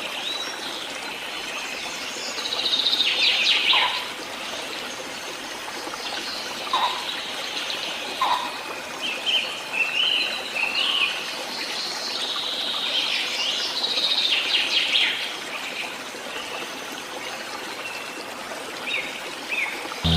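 Birds chirping and singing in short, scattered phrases, with bursts of busier chirping now and then, over a steady hiss of running water.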